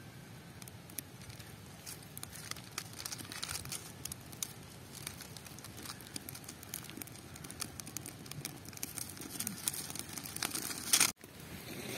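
Lentils (dal) being poured and handled in a clay pot: scattered light clicks and patter, growing busier toward the end. About eleven seconds in there is a loud clatter that cuts off abruptly.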